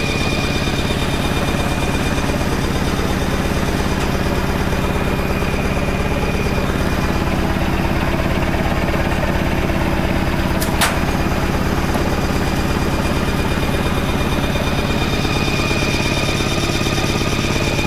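Belliss & Morcom high-speed steam engine driving its DC generator, running steadily with a rapid, even beat and a steady high whine. A single sharp click sounds about eleven seconds in.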